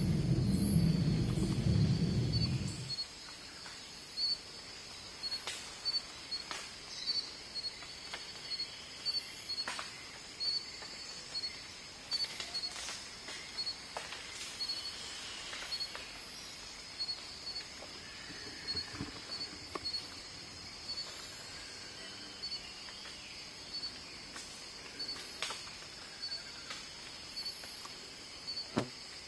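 Forest ambience: a steady high insect chirping made of short repeated pips, with scattered faint clicks. A low rumble at the start stops about three seconds in.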